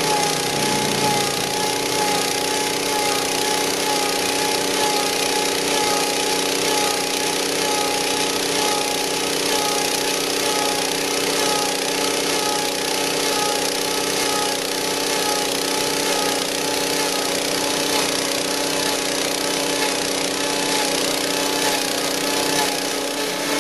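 Small gas engine of a log peeler running steadily at an even high speed while it strips bark from a turning log.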